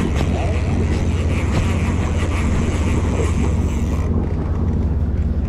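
Boat engine running with a steady low hum, over a constant rush of wind and water.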